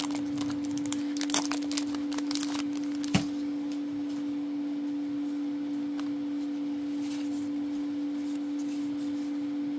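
A steady hum holding one pitch throughout, with a few soft clicks and one knock about three seconds in as Magic: The Gathering cards are handled on a playmat.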